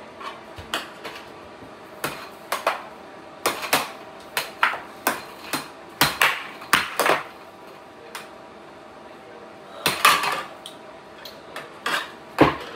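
Air hockey puck clacking against plastic mallets and the table's rails during a rally: sharp knocks at an irregular pace, easing off about eight seconds in before picking up again near the end.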